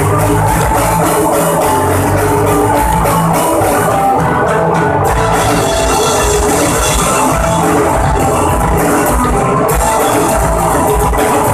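Live rock band playing an instrumental passage, loud and steady: electric guitars, bass guitar and a drum kit with regular drum strikes.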